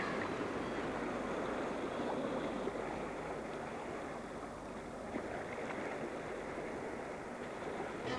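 Steady rushing wash of sea water and small waves.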